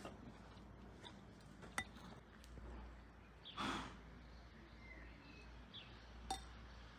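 Quiet yard ambience with a few light clinks of dishes, the sharpest just under two seconds in and another near the end, a short breathy rush of noise about halfway through, and faint bird chirps.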